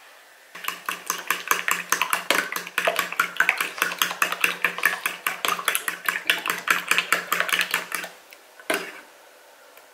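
Fork rapidly beating egg wash in a ceramic bowl, the metal tines clinking fast against the bowl. The beating stops about eight seconds in, and one last tap follows.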